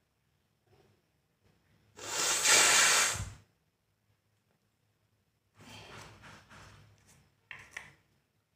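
A person forcefully blowing the nose, one loud hissing blow of about a second and a half, then a softer, longer blow and a brief short one near the end.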